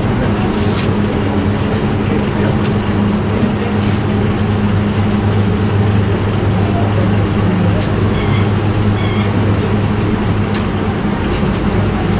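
Steady machine hum over a constant rushing noise, with a deep drone that does not change. About eight and nine seconds in there are two short high-pitched tones.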